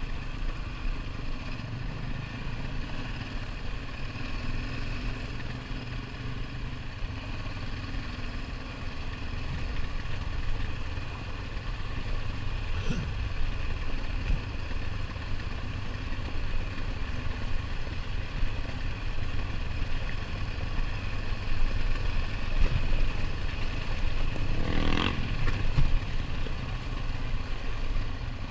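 ATV engine running steadily while riding, with a low rumble throughout. A short sharp knock about halfway through and a louder clatter near the end.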